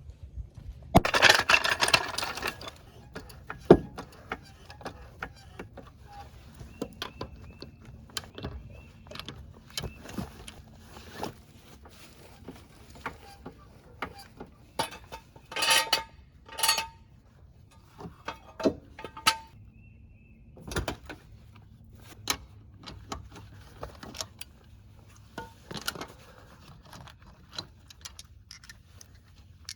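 Hand tools and metal parts clinking and clanking at irregular intervals during work on a car's rear shock absorbers, some knocks ringing briefly, with a loud rasping burst about a second in.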